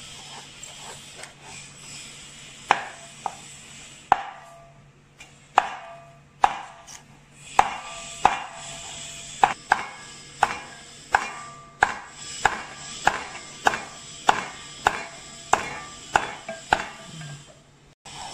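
Steel cleaver chopping a snake's body into short pieces on a thick wooden chopping block: sharp knocks, a few spaced out at first, then a steady run of about one and a half a second.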